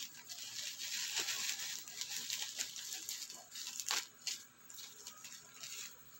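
Plastic bubble wrap crinkling and rustling as it is pulled off a small box by hand, with many sharp crackles and one louder crack about four seconds in.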